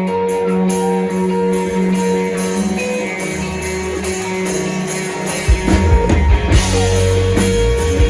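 Live band playing a song's instrumental intro: held electric guitar notes at first, then bass and drums come in about five and a half seconds in.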